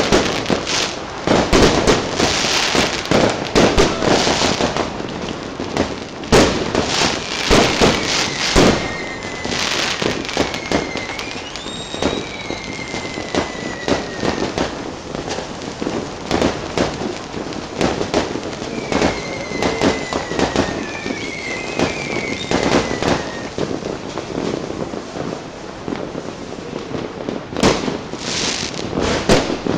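Fireworks going off: many bangs and pops in quick, uneven succession, with thin whistling glides in pitch twice, around a third and two thirds of the way through.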